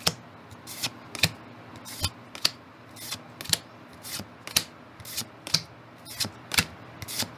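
Pokémon trading cards slid one at a time from the front to the back of a hand-held stack, each card making a short flick, about two a second.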